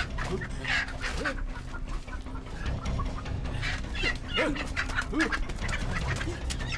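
A chicken squawking and clucking in agitated calls, among many sharp clicks and knocks from flapping and scuffling.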